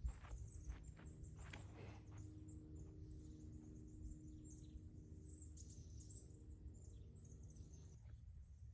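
Faint outdoor ambience: birds chirping high and soft under a steady low rumble and hum, with a few light ticks in the first two seconds.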